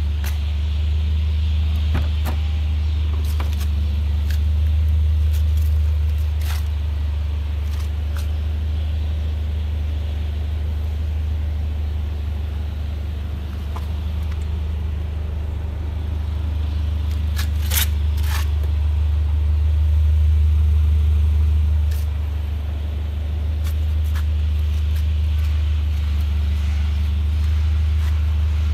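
Car engine idling: a steady low rumble that slowly swells and eases, with a few sharp clicks a little past the middle.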